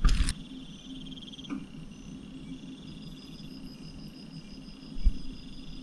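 Insects trilling in the background, several high-pitched pulsing trills overlapping steadily, with a low thump about five seconds in.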